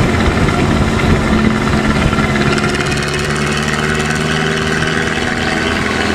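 A bus's diesel engine running with a loud, deep 'ngorok' (snoring) exhaust note. A hiss builds over it about halfway through and eases off near the end.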